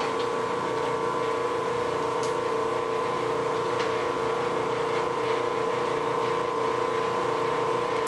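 Electric wire stripping machine (Bluedog BWS-60) running after switch-on: its 1.5 hp electric motor and gearbox give a steady, even hum.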